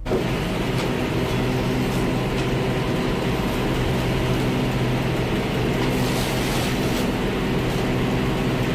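Steady mechanical drone with a low hum, like a running engine, starting abruptly and holding level throughout.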